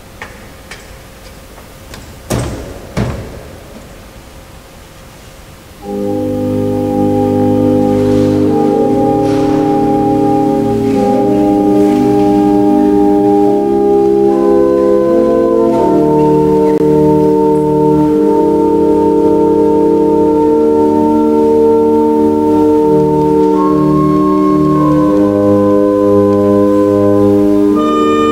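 Two sharp wooden knocks a couple of seconds in as a carved wooden ornament is fitted back into the organ case. About six seconds in, the 1733 Hinsz pipe organ starts playing: held full chords that change slowly, loud to the end.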